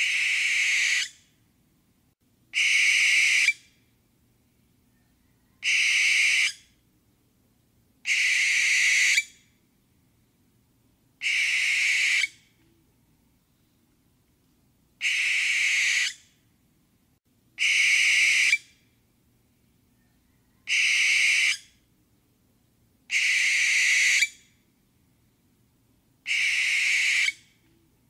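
Barn owl giving its hissing screech call over and over, about ten screeches each lasting roughly a second, spaced two to three seconds apart.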